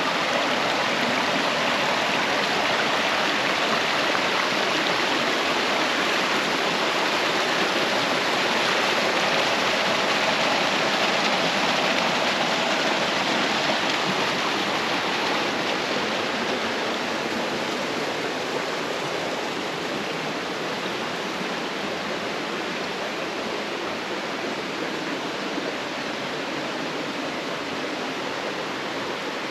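Steady rush of water tumbling over rocks in a mountain stream or waterfall, growing a little fainter after about halfway.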